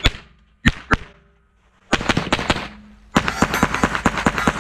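Rapid rifle fire at steel targets. Three single shots come in the first second, then a quick string about two seconds in, and a fast run of many shots from about three seconds on, with steel plates ringing from the hits.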